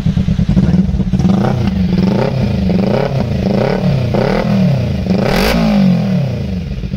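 Kawasaki Ninja 300's parallel-twin engine through an aftermarket Akrapovic exhaust, revved hard while standing in a series of about six quick blips. The last blip goes highest, then falls back toward idle near the end. The exhaust note is loud.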